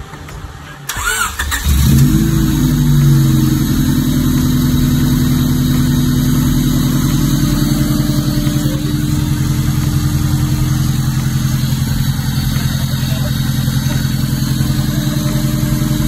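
A Honda Civic EG's four-cylinder VTEC engine being started: brief starter cranking about a second in, catching near two seconds with a short flare in revs, then settling into a steady idle.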